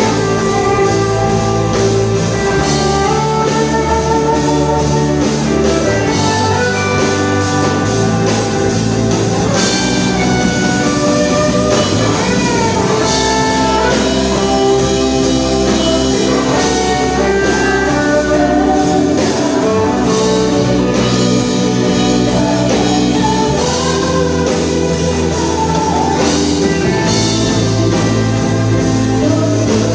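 Live worship band playing an Indonesian praise song: women's voices singing the melody over keyboard, electric guitar, bass and drum kit.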